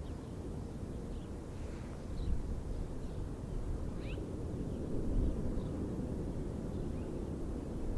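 Distant jet airliner's engines giving a low rumble on its takeoff roll, growing a little louder about two seconds in. A few faint bird chirps sound over it.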